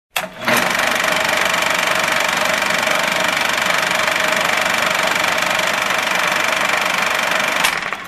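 Old film projector sound effect: a steady mechanical running noise with a constant whine, starting with a click about half a second in and cutting off shortly before the end.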